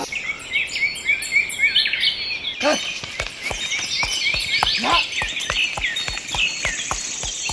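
Many small birds chirping and twittering. From about three seconds in, a fast run of light clicks or taps joins them.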